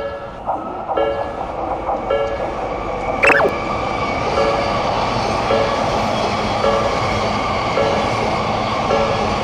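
Railroad crossing warning bell ringing, one ding about every second, while a passing train's running noise builds and then holds steady. A short falling whistle-like glide sounds about three seconds in.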